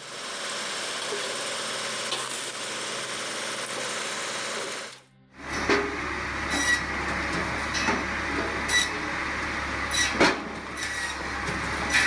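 Firewood-processing machinery running: a steady mechanical noise for about five seconds, then, after a short break, a machine running with sharp knocks about once a second.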